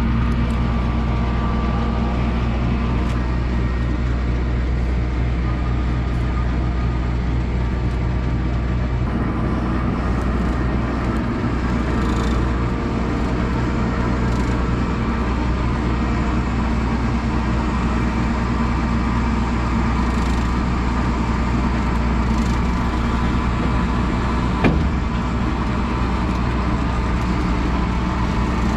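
Combine's diesel engine running steadily at idle, with a slight change in its note about nine seconds in and a single knock near the end.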